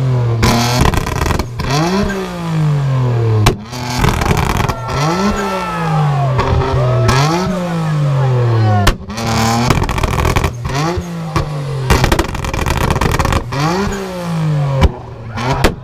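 R33 Nissan Skyline's engine being revved hard again and again while the car stands still. Each rev climbs quickly in pitch and then falls away, about every one and a half to two seconds, with a few sharp cracks in between.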